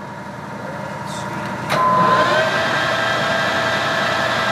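Clausing variable-speed metal lathe running with a steady whine; about 1.7 s in there is a click, then the pitch rises and the machine gets louder as the spindle speed is raised, settling at a higher steady whine.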